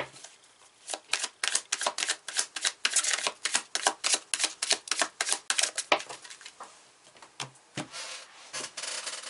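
A tarot deck being shuffled by hand: a fast run of small card clicks, about five a second, for about five seconds, then a few slower clicks and a brief rub of cards near the end.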